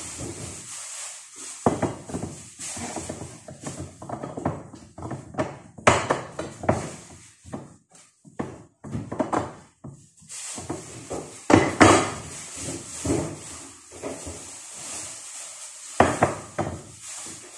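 Kitchen clatter: dishes and utensils being handled and set down on a countertop in irregular knocks and rattles, with sharper knocks about six, twelve and sixteen seconds in.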